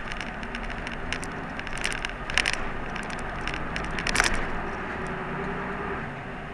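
Route bus running, heard from inside the cabin as a steady low rumble. Over about the first four and a half seconds come a string of irregular sharp clicks and rattles, two of them louder than the rest.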